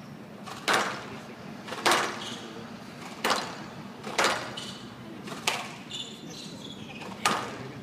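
Squash ball being hit back and forth in a rally: six sharp cracks of racquet and wall strikes, about one every second or so, each ringing briefly off the glass court.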